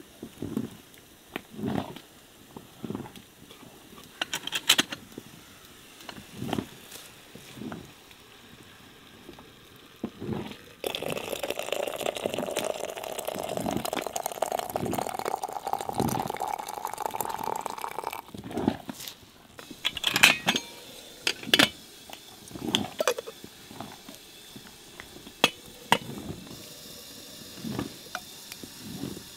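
Pots and utensils knocking and clinking. For about seven seconds in the middle, liquid pours steadily into a container, its pitch rising as the vessel fills.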